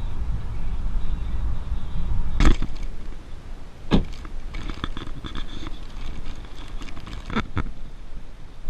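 Car cabin road noise, a low steady rumble, cut by a loud sharp knock about two and a half seconds in, after which it falls away; another knock follows a second and a half later, then light rattling and two quick clicks near the end.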